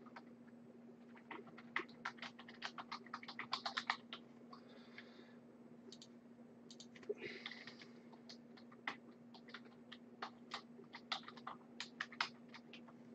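Faint typing on a computer keyboard: quick runs of keystrokes, then scattered single clicks, over a low steady hum.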